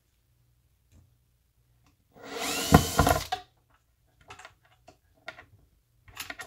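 Cordless drill-driver runs for about a second, driving a mounting screw, its whine rising as it spins up. A few light clicks and knocks of handling follow.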